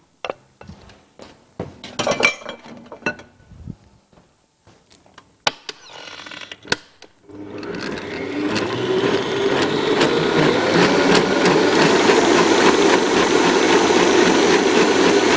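A few knocks and clinks of bowls and utensils against a stand mixer's steel bowl, then about seven seconds in the stand mixer starts and its balloon whisk runs steadily at speed, beating cream cheese and cream into a cheesecake filling.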